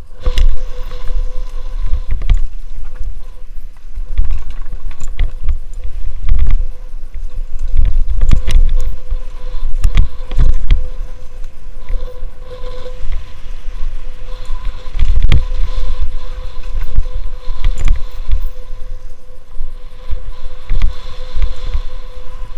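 Mountain bike descending a rough dirt trail, heard from a helmet camera: gusty wind noise on the microphone, with frequent knocks and rattles from the bike over bumps and a faint steady whine underneath.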